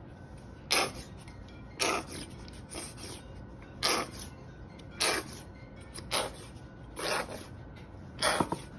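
Plastic squeeze bottle of French's yellow mustard squirting onto raw pork shoulder in short noisy spurts, about eight of them, roughly one a second.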